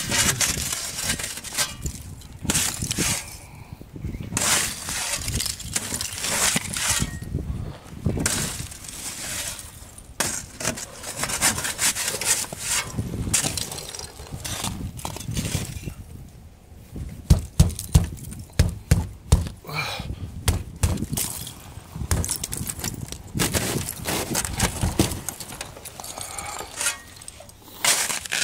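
Crusted ice and snow crunching and cracking, irregular crunches throughout with a quick run of sharper cracks about two-thirds of the way in.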